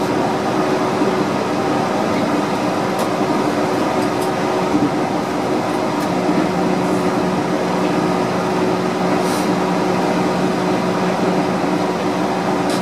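Yurikamome automated guideway train running on rubber tyres along its concrete guideway, heard from inside the car: a steady rolling rumble and hiss under a steady motor hum. A second, lower hum joins about halfway through.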